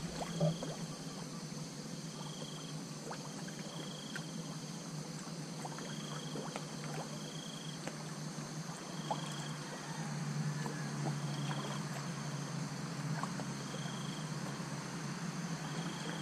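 Calm river ambience beside a moored boat: water lapping at the hull under a steady low hum, with a short high chirp repeating about every two seconds and a few faint small knocks.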